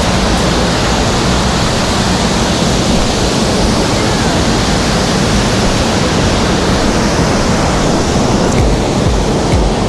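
Waterfall pouring heavily, a steady loud rush of falling water. The falls are running full with high water after rain.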